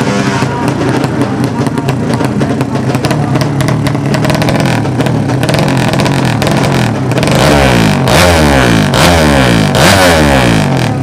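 Several 200cc racing motorcycle engines running hard together, their pitches repeatedly climbing and dropping through the revs. They grow louder from about seven seconds in.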